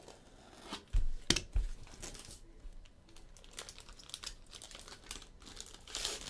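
Plastic wrapper of a trading-card pack being crinkled and torn open by hand, with a few sharp knocks and bumps about a second in.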